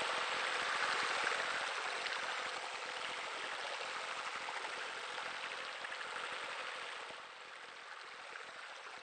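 Steady splashing of water falling from a pool's spillway water feature into the pool. It drops in level about seven seconds in.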